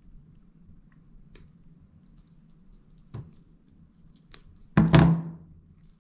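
A few small clicks of metal fishing pliers snipping the tag end of monofilament line, then one loud knock with a brief ring about five seconds in as the pliers are set down on a plastic cutting board.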